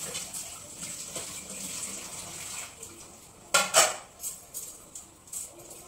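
Dishes and utensils clattering as they are washed at a kitchen sink, over the hiss of running water. Two loud clanks come a little past halfway, then a few lighter clinks.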